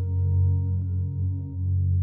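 Slow ambient background music of low held tones, with a higher ringing tone that fades away about a second in.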